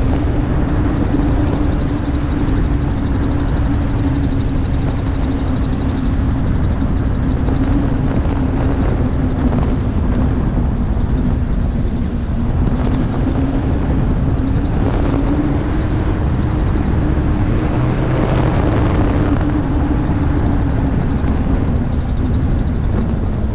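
Gyroplane in flight: the pusher engine and propeller drone steadily, their note wavering a little in pitch, under heavy wind rush on the microphone.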